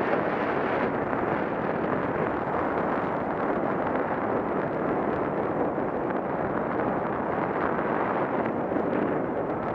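Steady wind rushing over the microphone of a Contour ROAM2 action camera, the airflow of a paraglider flight.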